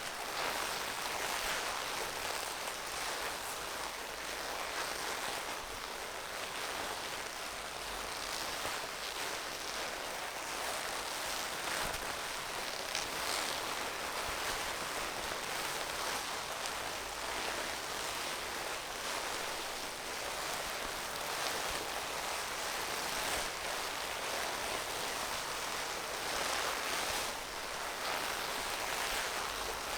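A steady hissing rush of noise, sitting high with almost no low end, holding much the same level throughout.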